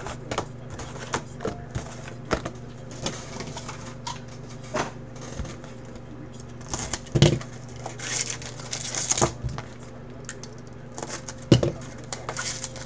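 Plastic shrink wrap crinkling and tearing as a box cutter slits it off cardboard trading-card boxes, with scattered handling clicks and two louder knocks about seven and eleven seconds in. A steady low hum runs underneath.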